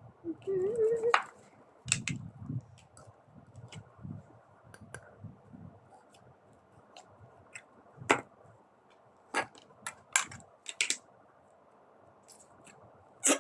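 Scattered sharp clicks and taps of small objects being handled, a few seconds apart, with a brief rising voice-like sound about half a second in and faint low murmuring soon after.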